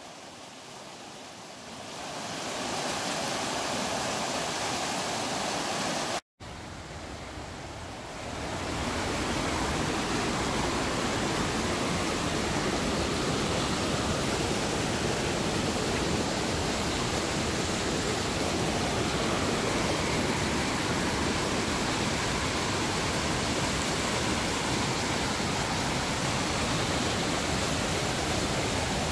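Creek water rushing over rapids, a steady hiss. It cuts out briefly about six seconds in, and is softer for a couple of seconds at the start and after the gap before settling at a steady, louder level.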